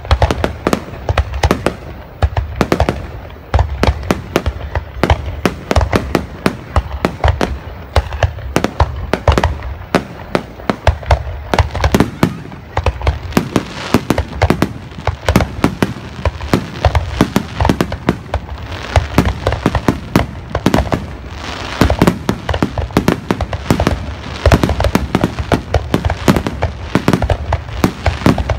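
Aerial firework shells bursting in a rapid, unbroken barrage, several loud bangs a second overlapping one another, with crackling from glittering stars thickest in the middle.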